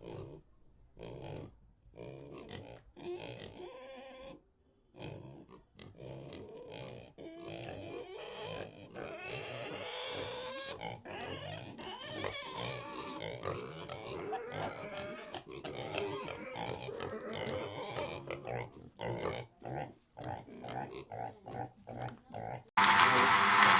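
Pigs grunting and oinking in irregular, pitch-wavering calls, with quicker short calls toward the end. About a second before the end, a much louder steady sound cuts in abruptly.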